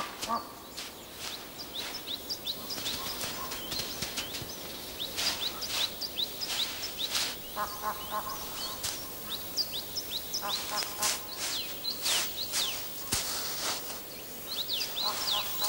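Small birds chirping with many short falling chirps, over the crunch of snow as a Barbary macaque digs and steps through it. Two brief pitched calls come about halfway and about two-thirds through.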